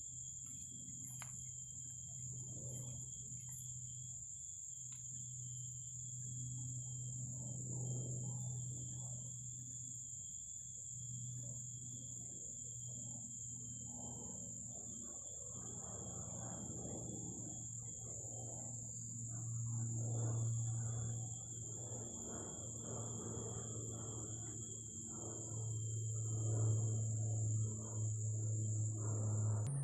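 A steady high-pitched insect drone over a low moaning hum that swells and fades, growing louder about two-thirds of the way in and again near the end. The uploader takes this eerie low drone for an aircraft passing overhead.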